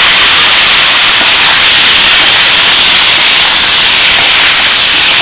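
Boiled young jackfruit (echor) pieces sizzling in hot oil in a wok: a loud, steady frying hiss as the moisture from the boiled pieces hits the oil and turns to steam.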